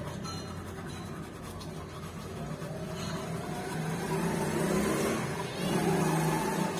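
A motor vehicle's engine hum, swelling about two seconds in and again near the end.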